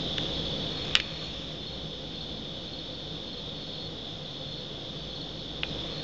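A chorus of crickets trilling steadily. A sharp click about a second in and a fainter one near the end.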